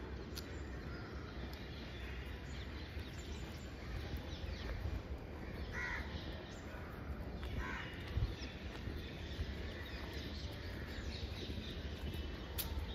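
Outdoor ambience with a steady low rumble. A bird gives two short calls about six and eight seconds in, with fainter chirps around them.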